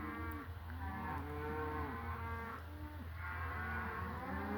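A herd of beef cattle mooing and bawling as they are driven along in a cattle drive, many calls overlapping one after another with a steady low hum underneath.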